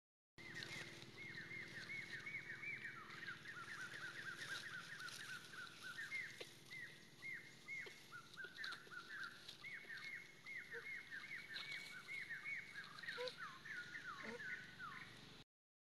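Baby macaque crying: a rapid run of high squeaks, each sliding down in pitch, several a second, with a few short breaks, an infant's distress call.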